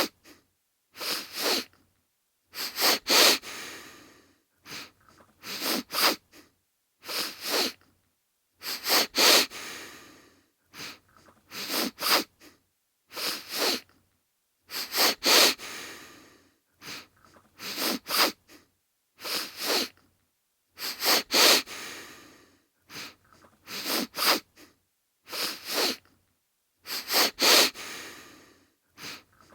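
A man sniffling hard through the nose, as with a cold. Quick clusters of two or three sharp sniffs repeat about every one and a half to two seconds, with short silences between.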